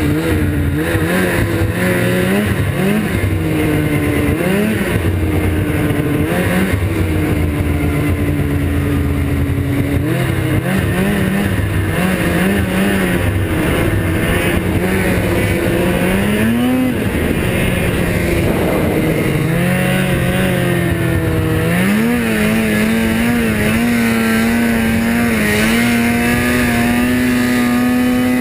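Snowmobile engine running under way across snow, its pitch rising and falling with the throttle. The revs climb sharply about sixteen seconds in and again about twenty-two seconds in, then hold a steady high pitch.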